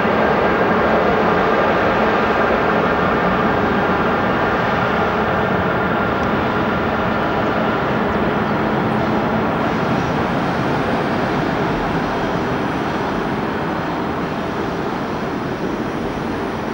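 Train passing close by, a loud steady rumble with a humming tone running through it, slowly fading.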